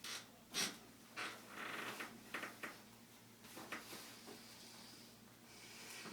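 Faint breathing, with a few soft knocks and clicks.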